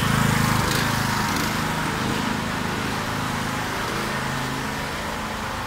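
Riding lawn mower's small engine running as it drives close past, towing a cart. The steady hum fades gradually as the mower moves away.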